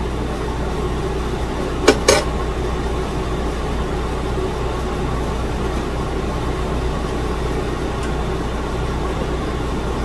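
A steady low hum of room background noise, with two sharp clicks close together about two seconds in.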